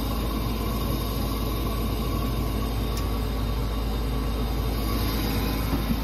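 Trane XR80 gas furnace in its startup sequence before the burners light: a steady motor hum from the draft inducer, with a single sharp click about halfway through.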